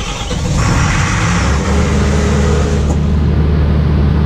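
Generator engine starting up from the panel switch: it runs unevenly at first, then settles into a steady running note about a second and a half in.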